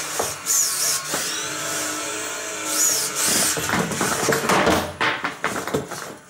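Combat robot's spinning weapon disc and brushless motor whining up and down in pitch, with clattering knocks and rattles in the second half as the robot bangs and tips over on the test box floor.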